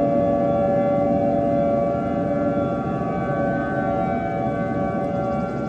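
Civil defense siren sounding the attack warning signal: a steady, loud siren tone with several pitches stacked together over a low rumble.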